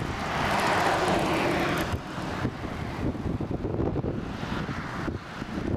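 Wind rushing over the microphone, with a car passing on the road alongside, loudest in the first two seconds and dropping off sharply after.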